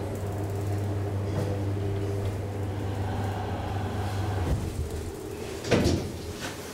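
DEVE hydraulic elevator running, with a steady low motor hum that cuts off about four and a half seconds in, followed about a second later by a single loud clunk.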